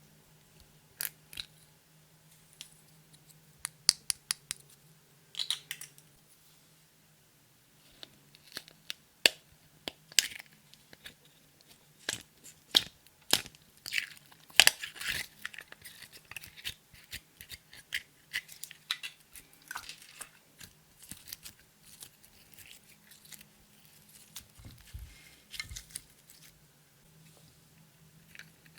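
Clear slime being squished and stretched by hand while makeup and glitter are mixed in, giving irregular sticky clicks and crackling pops. The clicks are sparse at first and come thick and fast from about a quarter of the way in, thinning out near the end.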